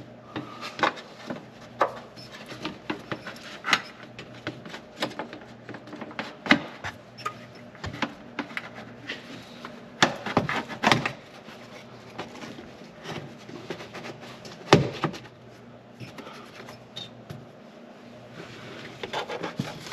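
Handling noise from a rubber hose being worked back onto its fitting on a Polaris Ranger UTV: scattered clicks, knocks and rubbing, with a louder knock about 15 seconds in, over a steady low hum.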